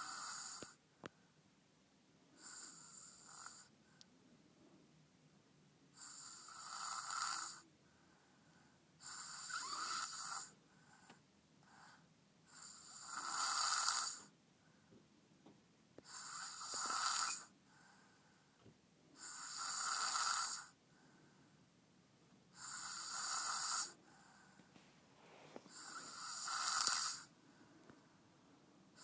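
Deep snoring from a sleeper in heavy sleep: nine long, breathy snores, one about every three seconds, with quiet between them.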